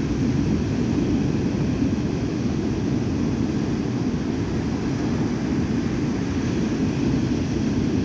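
Storm surf on the sea: a steady, low rumble of waves breaking without pause.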